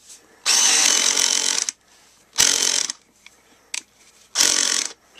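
Genesis 7.2 V lithium-ion cordless screwdriver driving a screw into wood, its clutch set at 15: one run of a little over a second, then two short half-second bursts as the screw is driven further.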